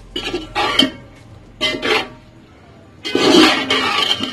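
A metal spoon stirring fusilli pasta and vegetables in a metal pot, scraping and swishing in three strokes, the last one the longest and loudest.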